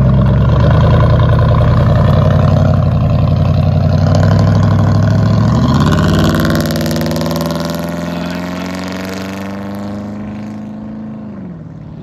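Lifted Ford F-150's V8 on a true dual exhaust, running at low revs for about six seconds as the truck pulls out, then rising in pitch as it accelerates away, fading with distance. The pitch drops briefly near the end.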